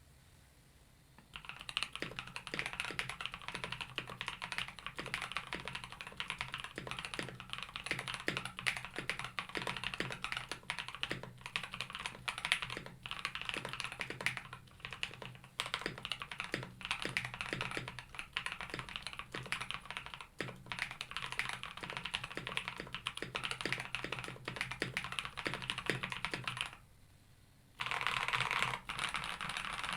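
Typing on a KBD67 Lite mechanical keyboard fitted with Black Cherry Pies linear frankenswitches (Cherry black tops, Alpaca bottoms, cream stems): a steady run of keystrokes that starts about a second in and pauses for about a second near the end.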